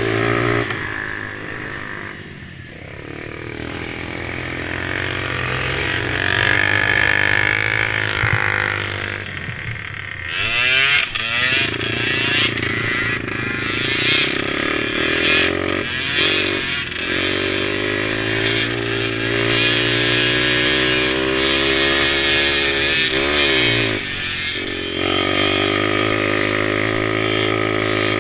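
Small mini quad engines running and revving, their pitch rising and falling as the throttle opens and closes, with quick sweeping pitch changes about ten seconds in and again near the end.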